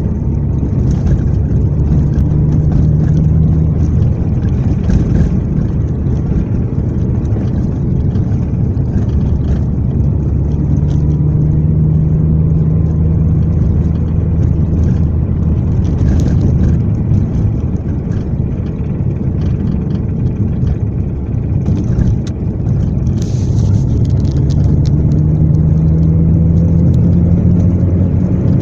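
Car engine running on overrun while driving, coasting in gear with the throttle closed, its note drifting up and down with road speed. A knock sounds over it, which the owner takes for a clogged fuel injector.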